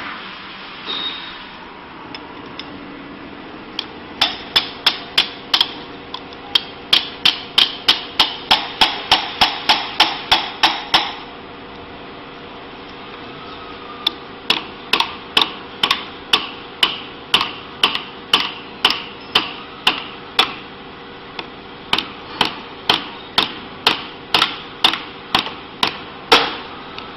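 Hammer striking metal in two runs of quick, ringing blows: about three a second for some seven seconds, then after a short pause about two a second, tapping the steel conical mold home on the machine's shaft.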